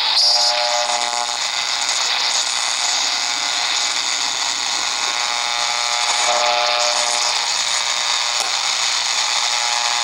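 Degen DE1106 shortwave receiver's speaker hissing with static while it is tuned across the 31-metre band. Buzzy tones come and go as signals are passed, once near the start and again about six seconds in.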